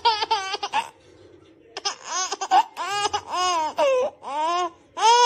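A baby laughing hard in a run of short, high-pitched bursts, pausing for under a second about a second in before laughing again.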